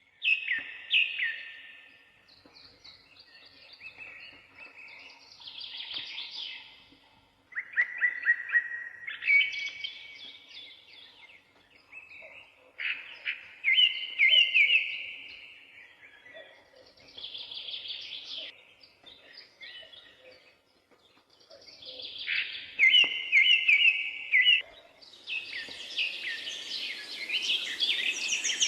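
Birds singing, with short chirping phrases repeating every few seconds. A steady hiss of background noise swells in over the last few seconds.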